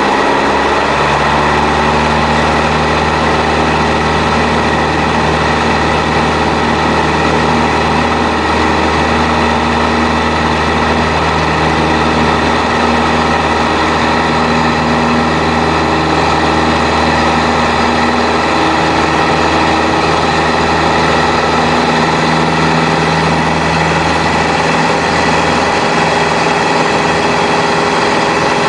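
Single-engine piston propeller aircraft running at takeoff power, heard from inside the cabin: a loud, steady engine and propeller drone. The low rumble eases away near the end as the plane lifts off the runway.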